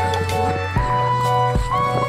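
Background music: a melody of held notes over a steady bass beat, about one beat every 0.8 seconds.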